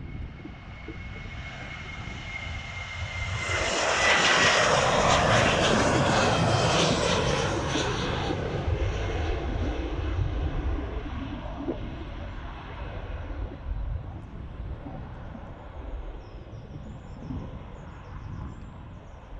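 Ryanair Boeing 737 jet engines at take-off power as the airliner rolls and lifts off. The noise builds to a peak about four seconds in, with a high whine that glides slightly down in pitch, then slowly fades as the jet climbs away.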